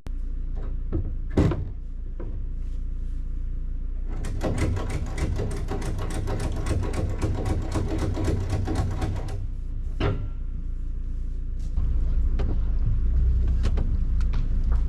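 A vehicle engine running with a steady low rumble. From about four seconds in, a rapid run of clicks or rattles sits over it for roughly five seconds, and the rumble grows louder near the end.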